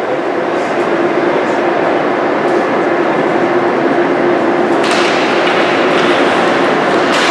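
Steady, loud din of a crowd in a sports venue, with two sharp knocks, one about five seconds in and one near the end.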